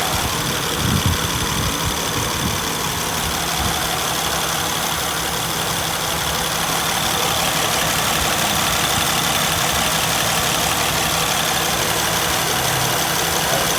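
Honda Accord's 3.5-litre V6 engine idling steadily with the air conditioning switched on, while the A/C system is being recharged with refrigerant. There is a brief low knock about a second in.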